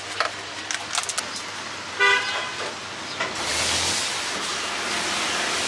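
A vehicle horn toots once, briefly, about two seconds in, over a few light clicks. From a little past three seconds a steady rushing street-traffic noise takes over.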